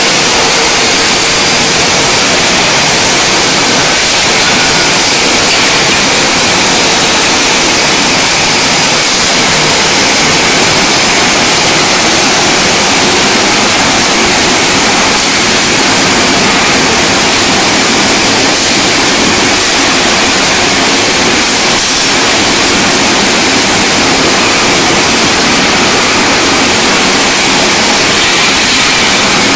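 Sandpaper grinding and polishing machines running on copper rods: a loud, steady, even hiss with no rhythm or change in pitch.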